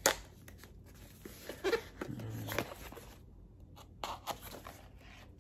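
Taped bubble-wrap packaging being cut open along its edges: a sharp click at the start, then scattered short scraping and crinkling sounds as the blade works through the tape and the packing rustles.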